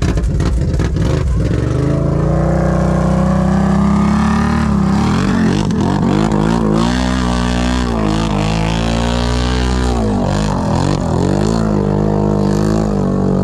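ATV engine revving in water: the note climbs over the first few seconds, then rises and falls again and again as the throttle is worked.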